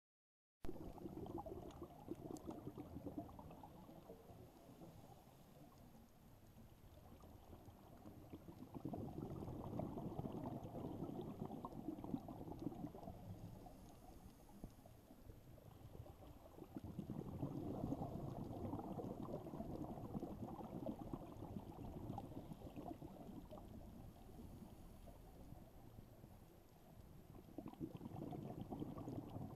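Muffled underwater bubbling and gurgling from a scuba diver's regulator exhaust bubbles, swelling and fading in waves several seconds apart with the diver's breathing.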